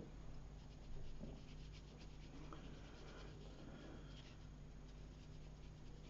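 Faint dabs and strokes of a watercolour brush on paper, a quick run of short soft ticks that fades out after about four seconds, over a steady low hum.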